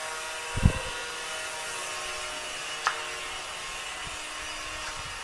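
Steady mechanical hum and hiss from a running machine, with a dull thump about half a second in and a sharp click near three seconds.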